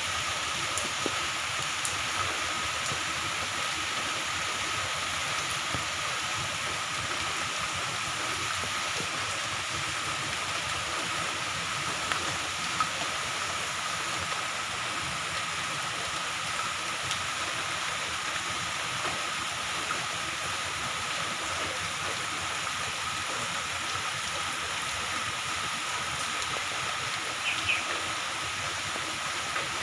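Moderate to heavy rain falling steadily, an even hiss with scattered drop ticks. A thin steady high tone runs through it, and there is a brief chirp near the end.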